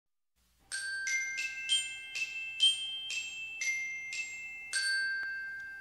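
Short intro jingle of bright, bell-like struck mallet notes: about ten notes in a quick melody, the last one ringing on and fading out.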